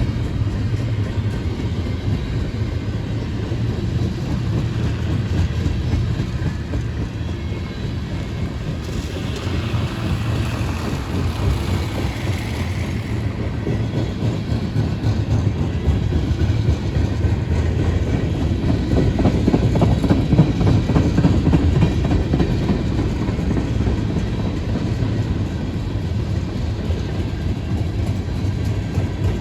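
Train rolling past, a steady, continuous rumble of railcars on the track. A higher hiss rises for a few seconds about a third of the way through.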